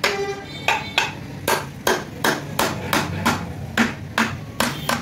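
Small hammer tapping repeatedly on the aluminium head of a 70cc single-cylinder motorcycle engine: a steady run of sharp metal knocks, about two to three a second, some ringing briefly.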